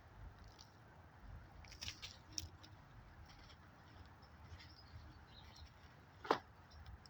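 Gloved hands digging through potting soil and leaf matter in a container, a faint scrabbling rustle with scattered crackles. A couple of sharp clicks come around two seconds in, and a single sharp crack near the end.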